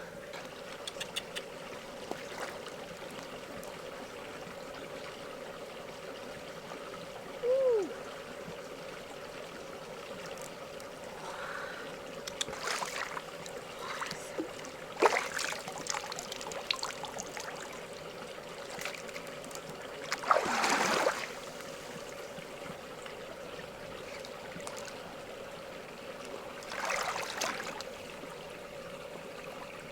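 Water trickling and splashing, with scattered clicks and taps from handling, over a steady low hum.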